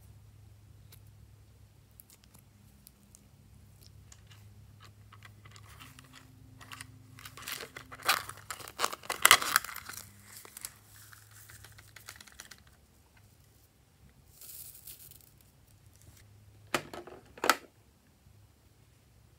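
Crinkling, crackling handling sounds that come in bursts and are densest and loudest in the middle. Near the end come two sharp, louder crackles.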